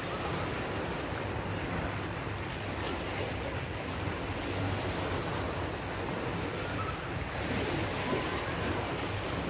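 Small sea waves washing and lapping over shallow water along the shore, with wind on the microphone and a low steady hum underneath.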